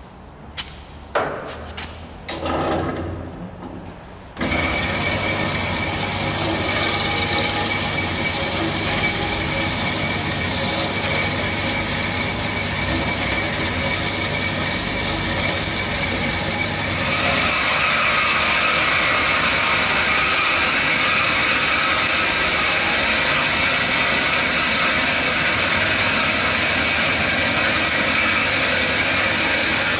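Cormak G5025 metal band saw: a few knocks, then about four seconds in the machine switches on and runs steadily with a high tone over its running noise. Past halfway the sound grows louder and brighter and holds there.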